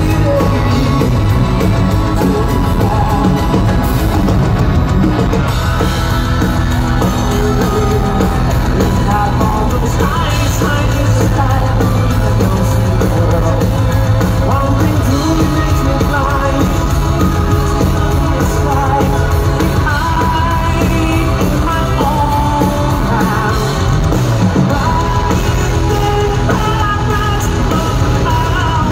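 Live power metal band playing through the PA: a male lead voice sings over electric guitars, keyboards, bass and a drum kit, without a break.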